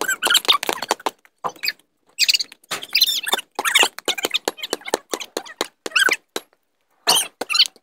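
Basketball game on a concrete driveway: a quick run of short high squeaks and sharp knocks from the players' shoes and the ball, with brief gaps between flurries.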